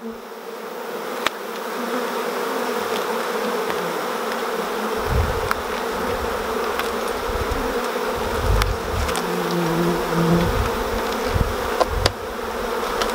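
Swarm of honeybees buzzing steadily around an opened hive, with one bee buzzing louder close by for about a second near the middle. A few sharp knocks and an uneven low rumble come in from about halfway.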